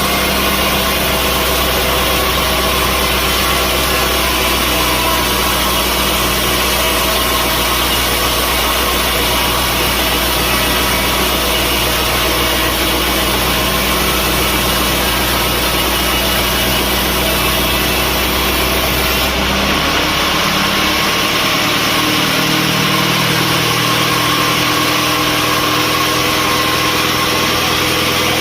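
Sawmill machinery running steadily with a loud, constant mechanical drone made of several steady tones over a noisy hiss. About 20 s in the deepest hum drops away and the lower tones change pitch, as the machine's load or speed changes.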